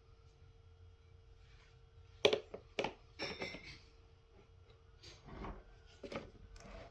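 Plastic vacuum-cleaner parts being handled and twisted together, with two sharp clicks a little over two seconds in, a short run of knocks and rattles just after, and a few lighter knocks near the end.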